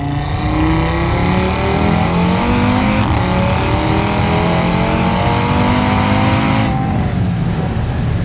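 Audi RS3 8V's turbocharged 2.5-litre five-cylinder accelerating with its exhaust flaps open. The flaps were opened early by the flap controller detecting the gearbox's S mode at about 3000 rpm. The revs climb, dip briefly about three seconds in, climb again, then ease off near the end.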